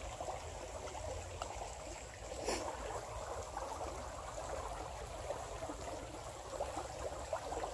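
A river flowing steadily: an even babble of moving water, with a short knock about two and a half seconds in.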